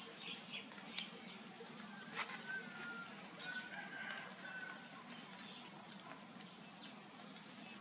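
Outdoor ambience: a steady high insect drone, with a distant bird, likely a rooster, giving two long, even calls a couple of seconds in, and a couple of faint clicks.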